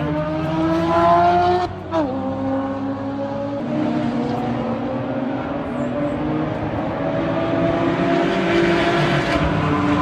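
Racing engine of a vehicle lapping a race track, its pitch climbing for the first two seconds, dropping sharply, then rising slowly again as it grows louder near the end.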